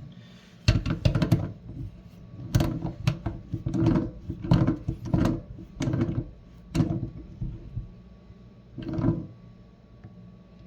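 Faucet parts being handled and fitted together by hand during reassembly: a run of short knocks, clicks and scrapes, with one more after a pause of about two seconds.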